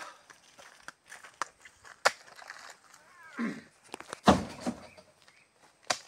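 Oil palm fresh fruit bunches being loaded into a small truck's bed: a series of knocks and thuds, the heaviest a deep thud a little over four seconds in as a bunch is thrown up into the truck.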